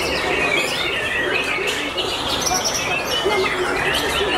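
White-rumped shamas (murai batu) in competition cages singing over one another in quick chirping and whistled phrases, with a crowd's chatter underneath.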